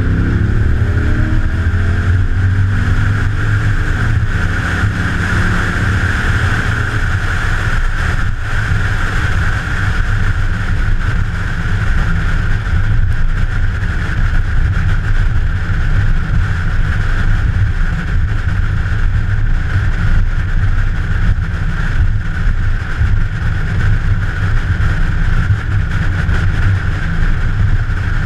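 A vehicle engine running under a steady low rumble and wind noise on the microphone. An engine note rises in pitch at the start and again about four seconds in.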